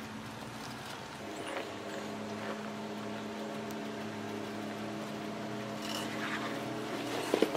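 Jeep Wrangler engine running low and steady as the Jeep crawls slowly over rocks, with a short knock near the end.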